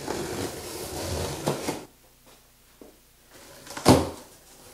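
Box cutter slitting the packing tape along a corrugated cardboard shipping box: a rasping, tearing scrape for about two seconds, then a few light clicks. About four seconds in comes one short, sharp cardboard crack as a top flap is pulled open, the loudest sound.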